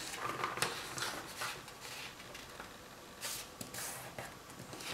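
A square of origami paper folded corner to corner and creased by hand: several short, dry rustles and crinkles of the paper, the loudest a little past three seconds in.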